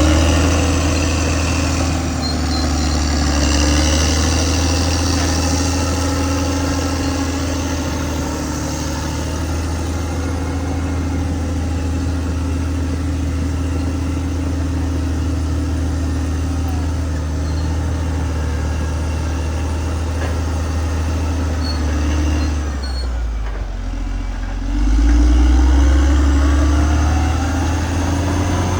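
Caterpillar D6R XL bulldozer's diesel engine running steadily under a low drone, with a higher whine over it. About three quarters of the way through, the engine sound drops away briefly, then comes back louder a couple of seconds later.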